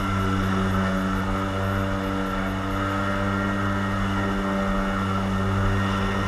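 Personal watercraft engine running at a steady, held throttle, a constant even drone.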